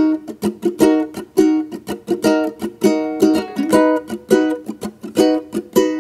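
Background music played on a plucked string instrument, with sharp notes or strums in a quick, steady rhythm of about two to three a second.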